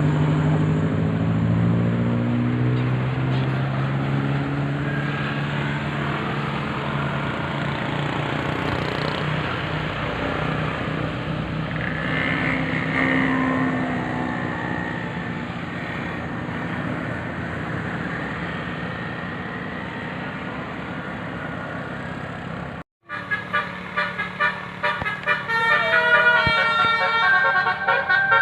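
A bus engine runs as the bus passes, its note shifting, with road noise. After an abrupt cut about 23 seconds in, a multi-tone telolet horn plays a quick stepping melody.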